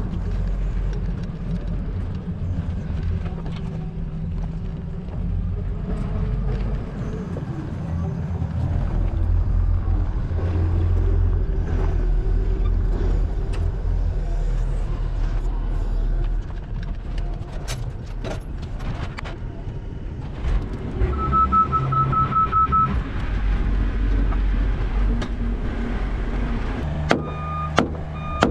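Skid loader engine running under load as it carries a roof truss on its boom attachment. There is a short run of high beeps about three quarters of the way through. Near the end come several sharp hammer strikes as the truss is fastened.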